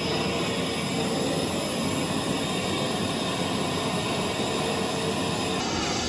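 BR Standard Class 5 steam locomotive 73082 Camelot moving slowly, with a steady hiss of escaping steam.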